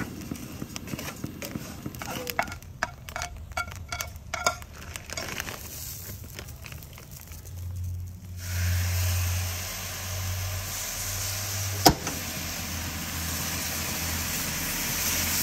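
A wooden spoon stirs and scrapes dry rice toasting in a hot pot, with scattered light clicks. About eight seconds in, saffron stock is poured onto the hot rice and the pot starts to sizzle and hiss loudly, steaming hard, with one sharp click partway through.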